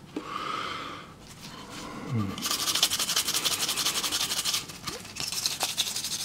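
Toothbrush bristles scrubbing the surface of an acetone-smoothed PLA 3D print in fast back-and-forth strokes, working at the white residue that acetone leaves on the plastic. The scrubbing is quiet for the first two seconds, then becomes steady and brisk.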